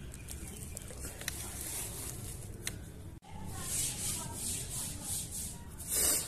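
Bubble wrap and packaging rustling and rubbing as they are handled, with a few faint clicks. The sound breaks off briefly about three seconds in, then a hissy rubbing resumes that swells and fades several times.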